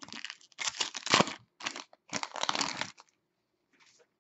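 Foil wrapper of a 2015-16 SP Authentic hockey card pack being torn open and crinkled by hand, in several short bursts over about three seconds, then falling quiet.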